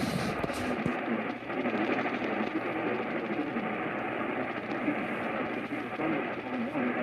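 Steady hiss of AM radio reception between parts of the broadcast, cut off above the voice range, with a faint wavering hum underneath.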